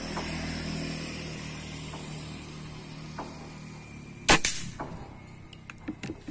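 One shot from an R3 Excalibur 500 cc PCP air rifle about four seconds in: a single sharp report. Before it, a low steady hum fades away over the first few seconds.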